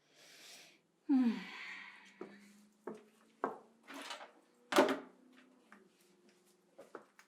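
Rummaging for things: a rustle, then a loud scraping creak about a second in, followed by a series of separate knocks and clunks, like a drawer or door being worked and objects picked up.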